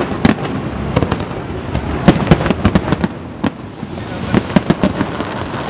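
Aerial fireworks bursting overhead: a rapid, irregular string of bangs and crackling pops, with a cluster of sharp reports about two seconds in and another near the end.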